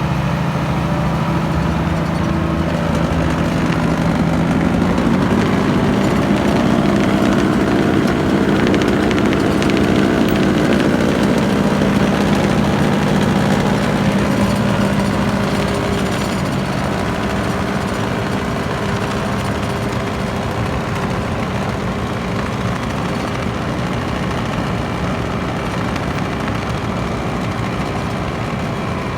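Diesel engine of a Wirtgen W1000F cold planer running steadily, with its revs rising about four seconds in. A dense rattling clatter sounds over the engine through the middle, then the engine settles to a steady run.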